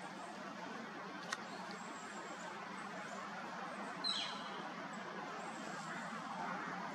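Steady outdoor background noise with a faint low hum, a sharp click about a second in, and one short bird call falling in pitch about four seconds in.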